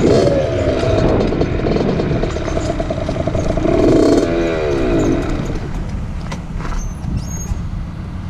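Dirt bike engine revving and holding a steady pitch, then a louder rev about four seconds in that falls away, leaving a lower, quieter rumble near the end.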